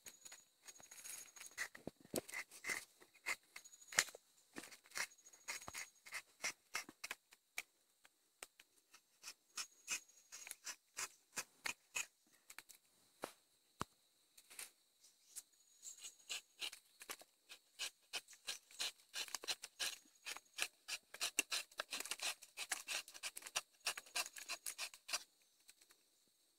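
Irregular dry scratching and clicking close to the microphone, coming thick and fast in the last few seconds, over a faint steady high drone with short high peeps now and then.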